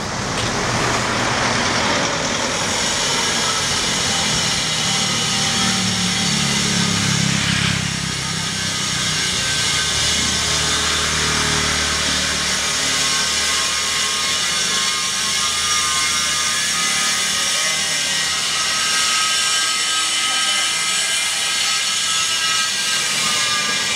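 Street traffic noise: motor vehicles passing, with a low engine rumble that swells and fades between about five and seventeen seconds in, over a steady hiss.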